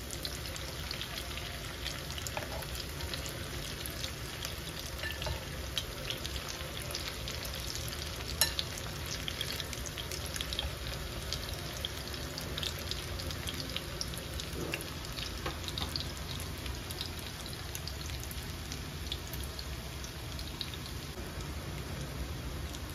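Sweet potato leaf, tofu and egg fritters frying in shallow oil in a pan: a steady sizzle with scattered crackles and one louder click about eight seconds in.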